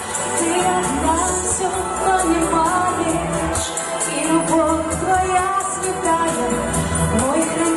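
A woman singing a Russian-language pop ballad about mothers into a microphone, over a backing track with bass.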